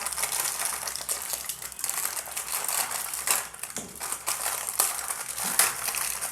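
Crinkling and crackling of packaging or wrapping being handled: a continuous stream of small rustles and clicks.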